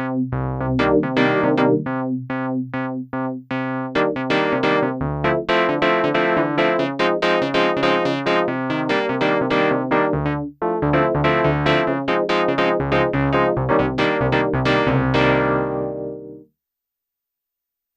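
Sequential Prophet-6 analogue polyphonic synthesizer playing a factory preset: a busy run of struck, quickly fading notes and chords over a low bass line, with a short break about ten seconds in, stopping near the end.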